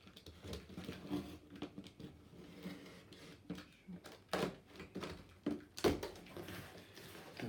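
Cardboard box being opened and its packaging handled: irregular rustling with scattered knocks and clicks, the loudest knocks about four and a half and six seconds in.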